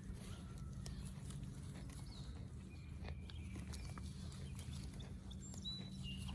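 Goats and a steer grazing: grass being torn and chewed, making irregular crunching clicks. A few short bird chirps and a steady low hum sound behind it.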